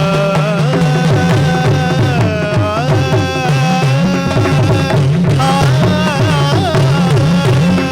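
Live Indian classical-style music: a melodic line that holds notes and slides between them, over a low percussion pattern repeating a little more than once a second.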